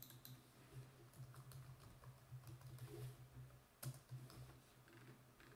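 Faint typing on a computer keyboard: scattered soft key clicks, a few a second, over a low steady hum.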